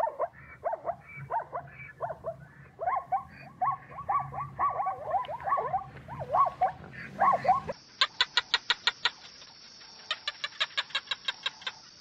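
Plains zebras calling: a run of short, repeated barking yelps, each falling in pitch, over a low rumble. About eight seconds in, this cuts to a fast, even train of high clicking chirps over a steady high hum.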